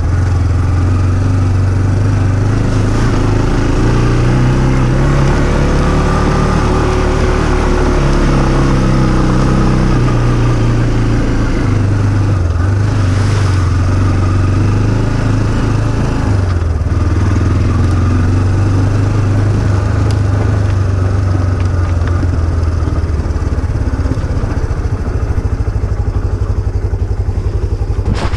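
Off-road vehicle engine running under changing throttle, its note rising and falling. Near the end it settles into a slower, even chug.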